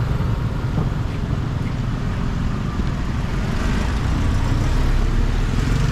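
Steady road-traffic rumble, a continuous low drone of passing vehicles with no single event standing out.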